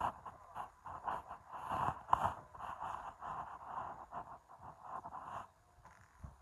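Cloth rustling and scraping against the phone's microphone as it is carried against a jacket, in irregular bursts that die away about five and a half seconds in.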